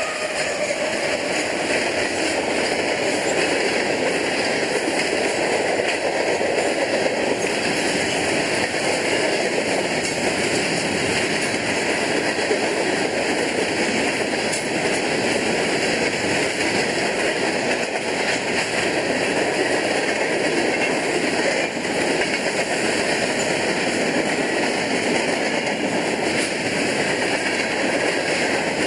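Cars of a mixed freight train, boxcars and covered hoppers, rolling past close by: a steady roar of wheels on rail and rattling car bodies. A faint falling tone from the passing locomotives dies away in the first second.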